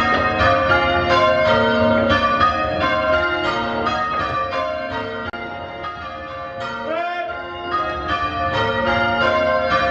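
A ring of five church bells change ringing: the bells strike one after another in a steady rhythm, each note ringing on under the next. The ringing dips a little in loudness just past the middle.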